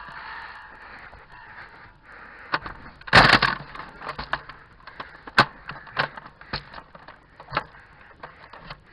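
Nerf blasters and foam darts: scattered sharp clicks and knocks, with one louder, longer burst about three seconds in.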